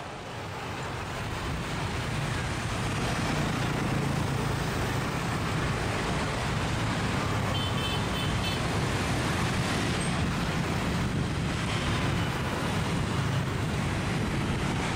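Road traffic of passing motorbikes and scooters: engines and tyres blending into a steady noise that swells over the first few seconds. A brief horn toot sounds a little past halfway.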